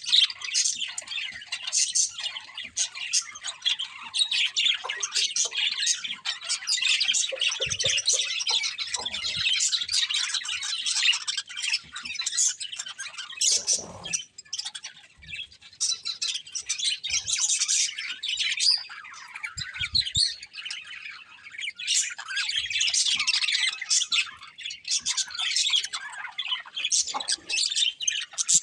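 Budgerigars chirping and chattering continuously, several birds calling over one another, with a few soft knocks along the way.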